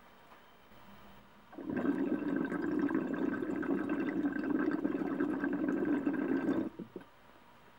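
Water bubbling and gurgling through the percolator and recycler chambers of a glass recycler bubbler rig as air is drawn through it. It starts about a second and a half in, runs steadily, and stops abruptly near the end, with one short gurgle after.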